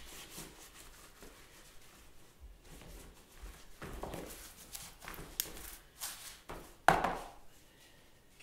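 Brush scrubbing and dabbing over layered paper collage, a run of irregular scratchy strokes, followed near the end by a sharp knock, the loudest sound, as the brush is put down on the work.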